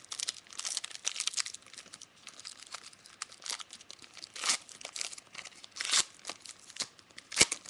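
Trading card pack wrappers crinkling and tearing as packs are opened and cards handled: a run of short rustles and rips, with a sharper, louder crackle near the end.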